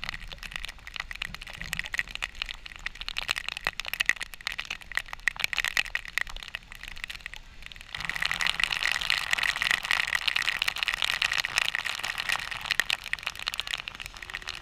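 Victoria Falls spray falling like heavy rain: a dense, crackling patter of drops hitting close to the camera over a steady hiss, growing clearly louder about halfway through.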